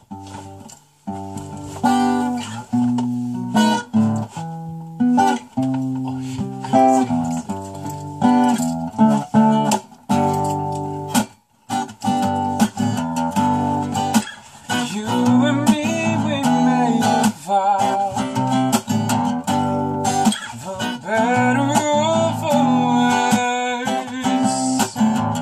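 Acoustic guitar strummed and picked, playing a slow chord intro, with a short break about eleven seconds in.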